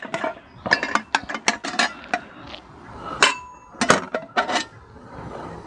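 Stainless-steel tubes and parts of a Merkel Optima cold-smoke generator knocking and clinking together as they are handled and pulled apart. One knock a little over three seconds in leaves a short metallic ring.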